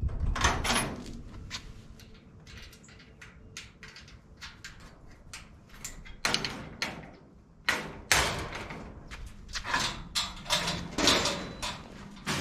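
Steel mesh pickup loading ramp being worked on and handled, making metal clicks, clanks and rattles. The first half holds scattered sharp clicks; from about halfway several louder clanks and scrapes follow.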